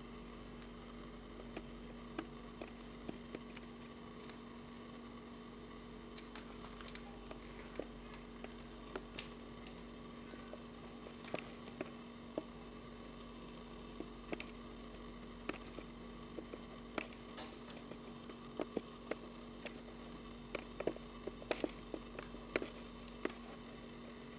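Steady electrical hum with scattered soft clicks and taps from kittens batting and clawing at a dangled rope on a shaggy mat, the taps coming more often in the second half.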